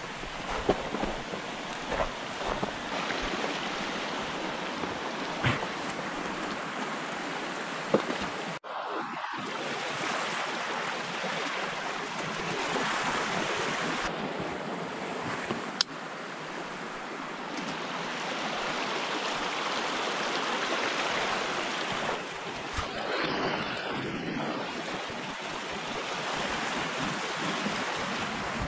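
A small mountain stream rushing and splashing over rocks, a steady noisy wash of water. There are a few sharp knocks in the first several seconds.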